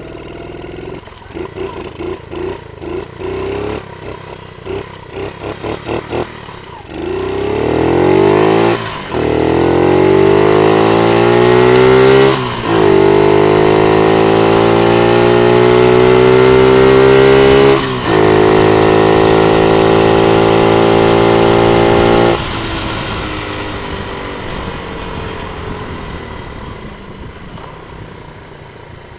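50cc Panterra dirt bike engine. It gives a run of short throttle blips, then accelerates hard, its pitch climbing and breaking three times as it shifts up. After holding a steady high note, the throttle shuts off about two-thirds of the way through and the engine note falls away as the bike coasts.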